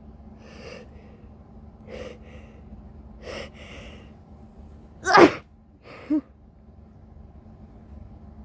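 A sneeze with a big buildup: three catching in-breaths, then one loud sneeze about five seconds in. A short, fainter voiced sound follows about a second later.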